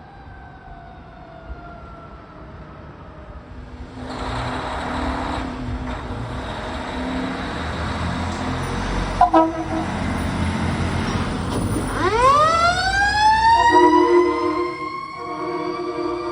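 Fire truck responding with its siren: the siren pitch is falling at first, and the truck's engine noise grows loud about four seconds in. About twelve seconds in, the siren winds up sharply again and holds a high pitch, with several pulsed horn blasts over it near the end.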